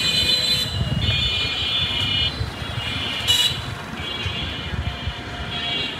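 Busy street traffic with a low rumble of engines and wheels, and repeated high-pitched, buzzy vehicle horn blasts of about a second each. A sharp knock sounds a little past three seconds in.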